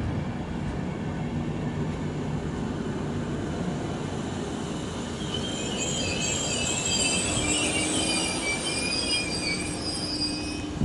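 Coaches of a passenger train rolling past a platform, with a steady rumble of wheels on the rails. About halfway through, a high-pitched, wavering squeal from the running gear joins in for several seconds.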